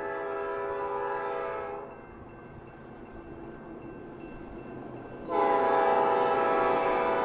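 Freight locomotive air horn: a chord of steady tones that cuts off about two seconds in, then after a quieter gap a loud long blast starts suddenly near the end, sounded as the approaching train nears the grade crossing.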